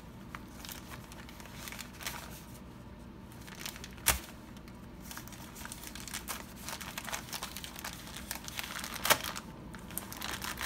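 Plastic mailing envelope being slit with a folding knife and torn open, its plastic crinkling and rustling through the handling. Two sharp clicks stand out, about four and nine seconds in.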